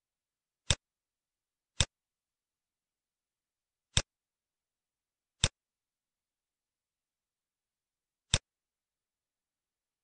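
Computer mouse clicks: five short, sharp clicks, irregularly spaced one to three seconds apart, with dead silence between them.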